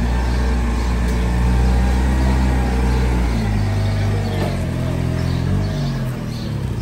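Toyota forklift's engine running as it carries and raises a loaded pallet, the engine note shifting pitch a couple of times.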